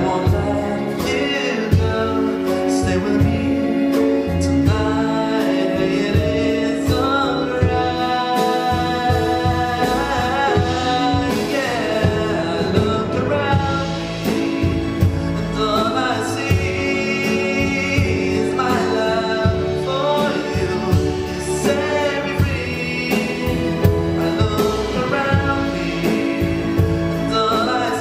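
Live song performance: singing over stage piano, acoustic guitar and a string orchestra, the strings holding long sustained chords beneath the melody.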